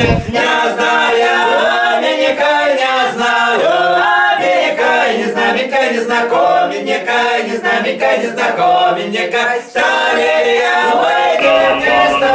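A small group of men and women singing together unaccompanied, with a brief break about ten seconds in before the singing goes on.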